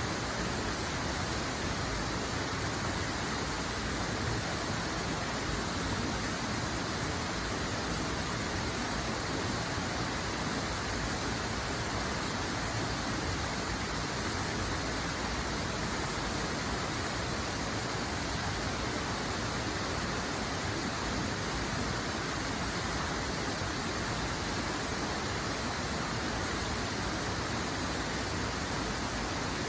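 Steady rush of flowing water, an even hiss with no single splashes or drops standing out.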